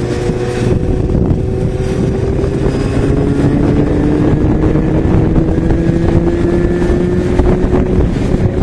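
Yamaha XJ6's 600 cc inline-four engine running under way, its pitch climbing slowly through the middle, with wind noise on the microphone.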